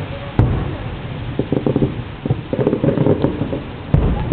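Fireworks shells bursting as distant booms, two sharp ones about half a second in and near the end, with smaller pops and rumbling between them.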